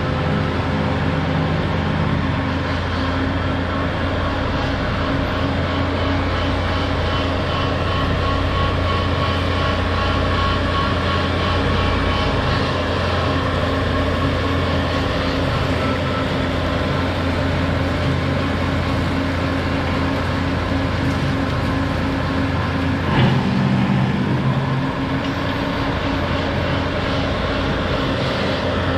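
A machine's engine running steadily under load while driving a 66-inch Brush Cat rotary brush mower. About three-quarters of the way through there is a brief knock, and the engine note changes for a moment before settling back.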